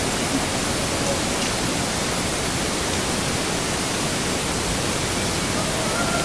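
Steady, even hiss from a body cam's microphone recording through the night, with no distinct sound standing out over it.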